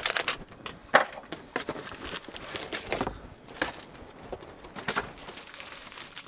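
Handling noise as a camcorder and its packaging are unpacked: rustling plastic bag and cardboard box, with scattered sharp knocks, the sharpest about a second in.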